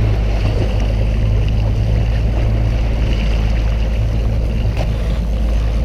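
Boat engine running steadily, a low even drone with water and wind noise over it.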